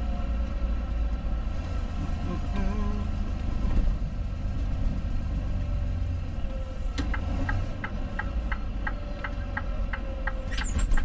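Semi truck's diesel engine running with a steady low rumble inside the cab. About seven seconds in, a regular ticking starts at about three ticks a second, the truck's turn-signal flasher. A brief high squeal comes near the end.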